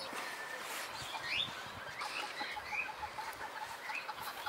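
Quiet chicken clucking, with a few short, high, rising bird chirps scattered through.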